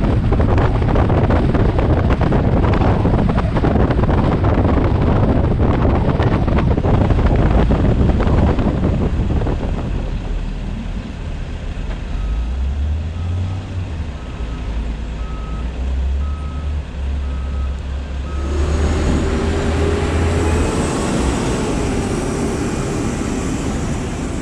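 Vehicle on the move with loud wind and road noise, easing off to a low engine hum about nine seconds in. A reversing beeper then sounds about eight times at an even pace, and near the end a brighter hiss with a faint whine joins in.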